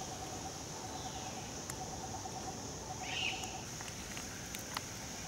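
Tropical forest ambience: a steady high insect drone, a rapid low trill that stops a little before four seconds in, and one short bird call about three seconds in.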